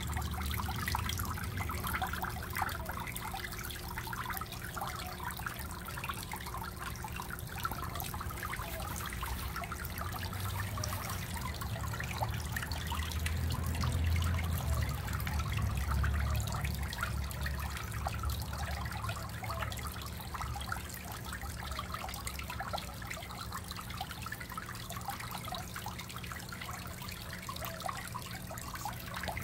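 Water trickling and splashing steadily into a small garden pond. A low rumble swells under it around the middle.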